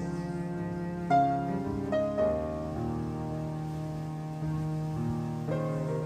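Slow, soft piano music: single notes struck every second or so over held chords.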